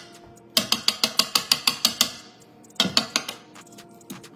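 A wire whisk beating a thick cream cheese and sugar paste in a ceramic mixing bowl, its wires clicking against the bowl in quick strokes, about seven a second. The strokes stop briefly at the start, then run for about a second and a half, followed by a few more strokes about three seconds in.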